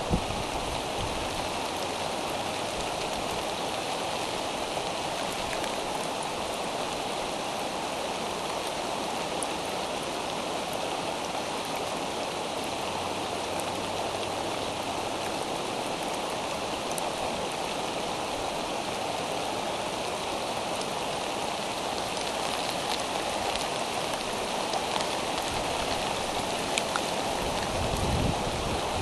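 Steady rain falling, an even hiss with scattered faint drop ticks. A short low rumble swells near the end.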